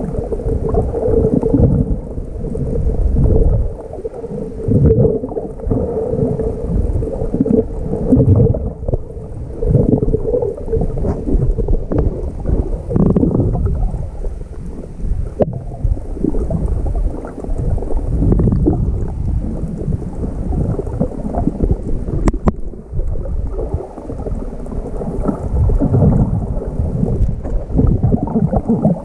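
Muffled water sloshing and gurgling around a swimmer's camera, with irregular surges from the swim strokes and a faint steady hum underneath.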